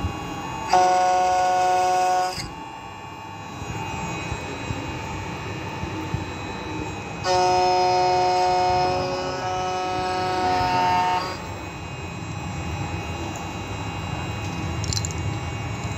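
CNC key-cutting machine working on a four-track externally milled key: over a steady running noise, its motors give a loud steady whine twice, briefly about a second in and for about four seconds from seven seconds in.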